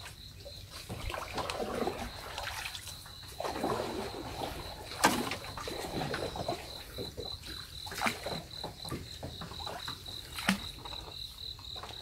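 Water splashing and trickling beside a small boat as fishing lines are handled among water hyacinth, with a few sharp knocks, the loudest about five seconds in. An insect trills steadily and high-pitched throughout, its trill breaking into even pulses in the second half.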